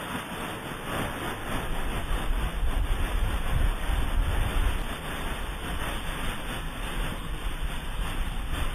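Wind rushing over the microphone as a snowboard slides over snow, with a steady hiss of the board on the snow. The low buffeting is heaviest from about one and a half to five seconds in.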